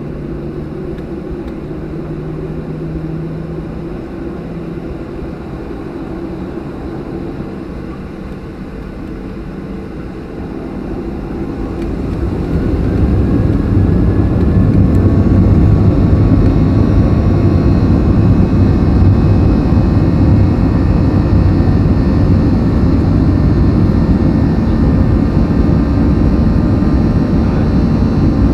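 Boeing 737-800's CFM56 jet engines heard from inside the cabin: a steady rumble at low power, then the engines spooling up about eleven seconds in with a faint rising whine, settling into a loud, even roar at high thrust, typical of the start of the takeoff roll.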